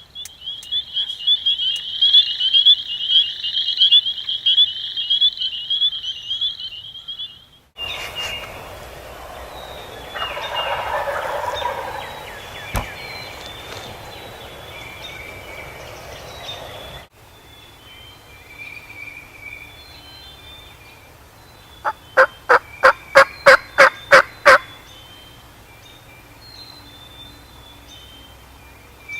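Wild turkey calling and gobbling outdoors, in several short spliced segments. About two thirds of the way through comes a rapid run of about ten loud, sharp calls.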